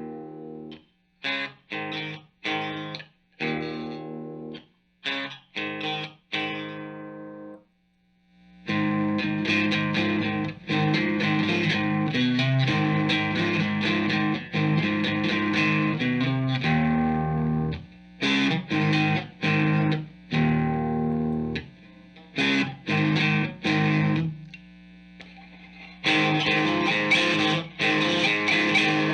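Electric guitar played with distortion through an amp and speaker cabinet. It starts with short, choppy chord stabs separated by gaps, then after about eight seconds moves into steady riffing broken by a few short pauses.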